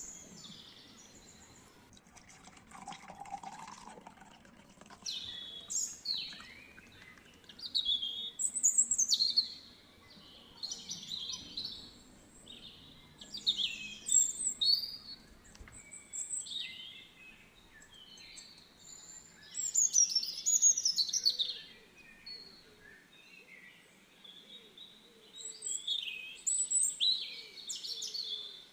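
Songbirds singing: short, bright chirps and trills that come in bursts every second or two, with brief pauses between phrases.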